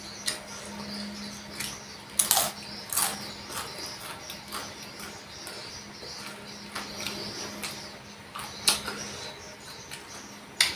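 Close-up eating sounds: chewing and wet mouth and lip clicks, with a few sharper smacks around two and three seconds in and again near the end. A faint steady hum runs underneath.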